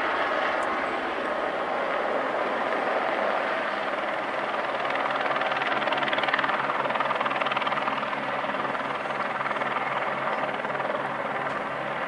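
Helicopter hovering just above the ground: a steady engine whine with the rotor beat, a little louder about halfway through.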